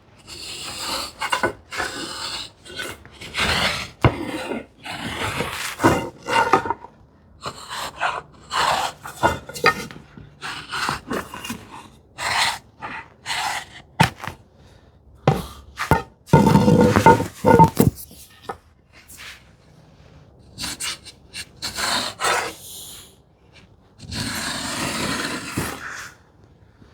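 Pin marking gauge scratching gauge lines along a wooden stick, in a string of short, irregular strokes. A longer, louder scrape comes about two-thirds of the way in, and another near the end.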